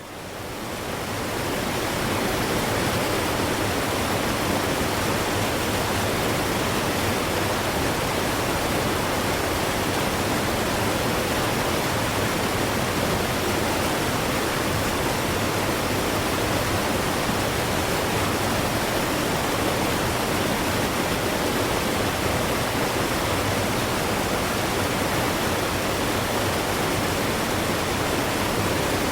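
Waterfall rushing in a steady, even roar of water, fading in over the first two seconds.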